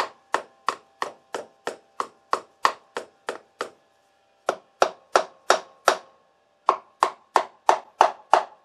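A small mallet tapping lightly and quickly on the Honda VTX1800's clutch-side engine cover, about three taps a second in three runs with short pauses, each tap leaving a short ringing note from the cover. The cover is being worked loose from its RTV sealant, and the note is turning hollower, which the mechanic takes as the sign that the seal is starting to let go.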